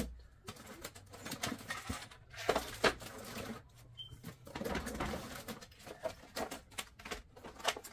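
Plastic-packaged craft stencils and dies being picked up and set down on a table: a string of clicks, taps and plastic rustles. About four seconds in comes one short, high chirp from a smoke alarm whose battery is running low.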